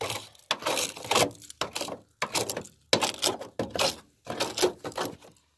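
Rusted sheet steel on a car's lower body panel being picked and broken away with a hand tool. It comes as a run of irregular scraping, cracking knocks, about two a second, as the rot is knocked out to reach solid metal.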